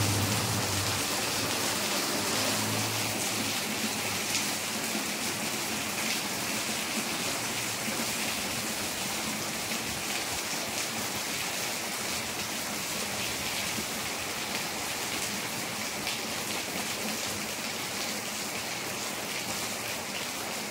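Steady rain falling on a wet concrete yard and puddles, an even hiss of drops. A low hum fades out in the first second.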